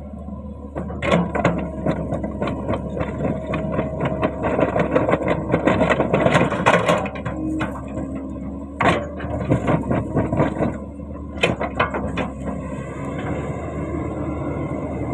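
Komatsu PC130 excavator's engine running under a dense, irregular metallic clanking and rattling of the track and undercarriage, which comes in waves and eases off near the end. The track has come off its links, so only one side turns.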